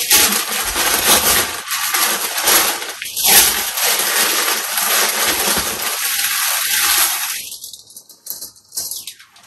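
Thin blue plastic garment wrapping crinkling and rustling as a shirt is unwrapped from it and handled. It dies away near the end.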